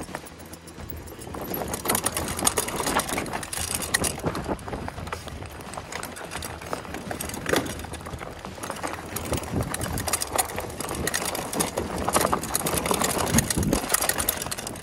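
Mountain bike descending a steep, rocky dirt trail: tyres crunching over rock and dirt and the bike rattling with continuous irregular clatter, which grows louder after about a second and a half.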